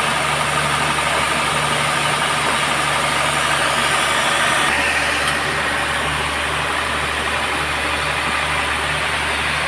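Band sawmill's engine running steadily, its tone shifting about halfway through.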